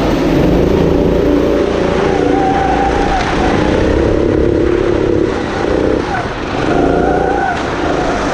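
Go-kart engine heard from on board, running hard on the throttle. In the second half the revs drop and pick back up several times as the kart slows into corners and accelerates out.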